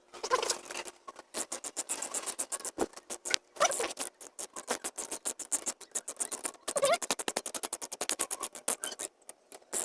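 Socket ratchet clicking in quick runs, running bolts down on the cylinder head of a Kancil 660cc engine, with a few brief voice sounds.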